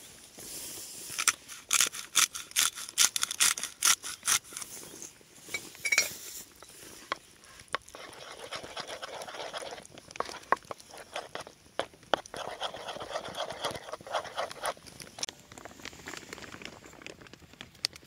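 A spoon mixing a soft mash with cream in a clay bowl: a run of sharp clicks and wet smacks against the bowl for the first few seconds, then a denser, squelchier stirring through the middle, thinning out near the end.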